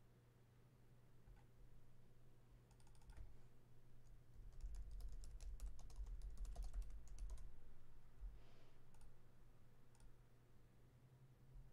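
Faint typing on a computer keyboard: a quick run of key clicks through the middle, with low thuds on the desk beneath and a steady low electrical hum.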